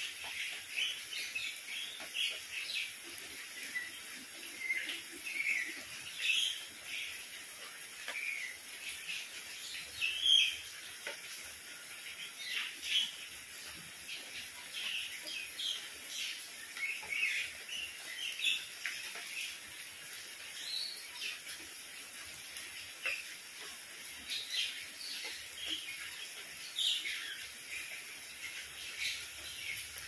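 Steady rain falling on paving and leaves, with birds chirping often over it; the loudest chirp comes about ten seconds in.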